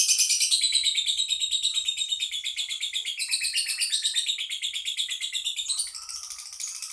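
Songbird singing a long, unbroken, high-pitched song of very rapid repeated notes, growing a little quieter near the end.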